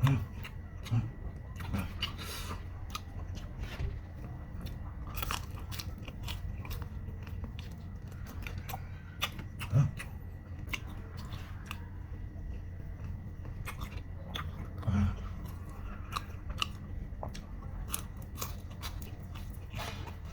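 Close-up chewing and crunching of crispy fried chicken, with irregular crisp crackles throughout and a few louder low thuds.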